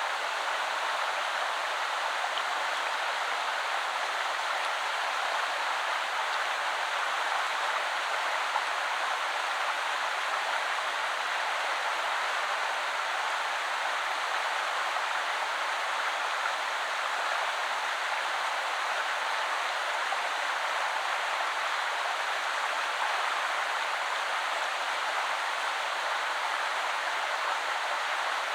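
River water flowing over stones, a steady, unbroken rushing.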